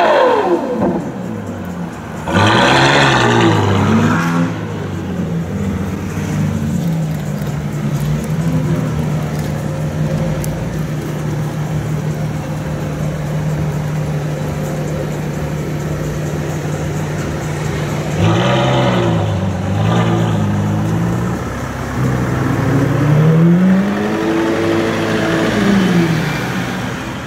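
Novitec N-Largo (Ferrari F12berlinetta) 6.3-litre V12 revved hard in short blips, settling to a steady idle. It is blipped again later, then rises and falls once more near the end.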